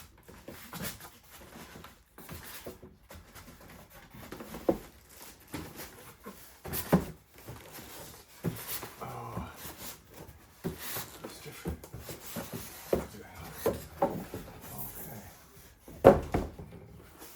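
Cardboard box and polystyrene packing rubbing, scraping and knocking as a boombox is slowly worked out of its carton. The handling noise is irregular, with a few sharper knocks, the loudest about 7 s and 16 s in.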